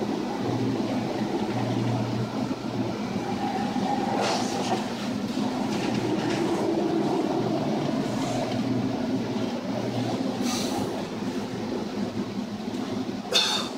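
Steady rumble on board a chemical tanker in heavy seas: ship noise with wind and waves breaking over the bow, over a constant low hum. A few short sharp knocks or splashes stand out, the loudest near the end.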